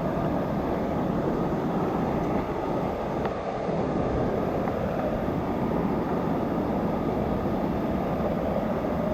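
Steady rush of falling water from waterfalls, an even noise that holds at one level throughout.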